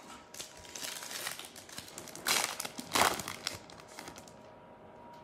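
Crinkling and tearing of a trading-card pack's wrapper as it is ripped open, in irregular crackles with two louder rips about two and three seconds in, then dying away.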